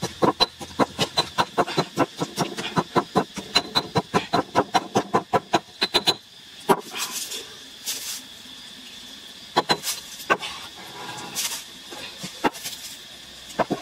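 Stone mortar and pestle pounding chillies into a paste, with rapid regular strikes about four a second. The pounding stops about six seconds in, and a few separate knocks follow.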